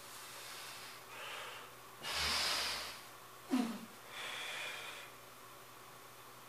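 A man's heavy breathing from the effort of flexing: several hard, noisy breaths, the loudest about two seconds in, and a short grunt that drops in pitch about halfway through.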